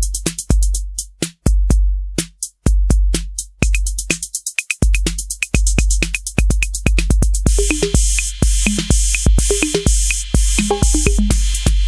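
Roland TR-8S drum machine playing a factory preset pattern: long, deep bass-drum notes under a steady run of sharp hi-hat ticks. About two-thirds of the way in, a hissing cymbal or open-hat layer joins the beat.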